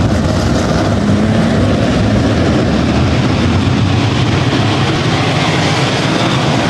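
Engines of a field of open-wheel dirt-track race cars running around the oval, a loud, steady drone.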